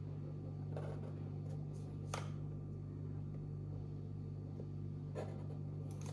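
Pen drawing lines on paper along a plastic set square, with a few light taps as the set square and pen are moved on the drawing board, over a steady low hum.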